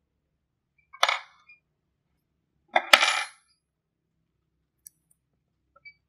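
Metal parts of an old table fan's motor clinking twice, about two seconds apart, while being taken apart by hand; the second clink is louder and rings briefly with a high tone. A couple of faint ticks follow near the end.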